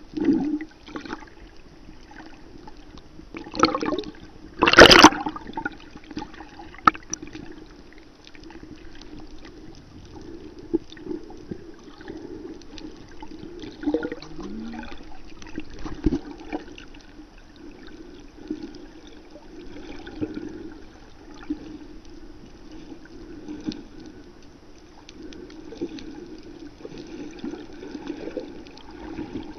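Water sloshing and bubbling as heard from a camera held underwater, with a loud burst of bubbling about four to five seconds in.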